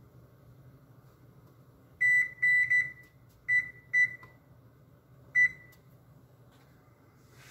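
Whirlpool range's control panel beeping as its keypad buttons are pressed to set the timer to 25 minutes: six short, high beeps, three in quick succession about two seconds in, two more a second or so later, and a last one near the end.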